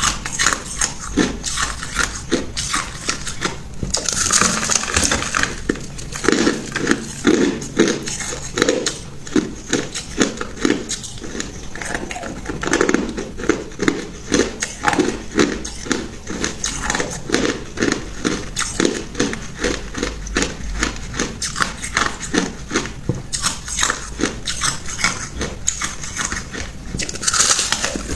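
Ice being chewed close to the microphone: a steady run of sharp crunches, about two a second, with a longer, louder crunch about four seconds in and again near the end.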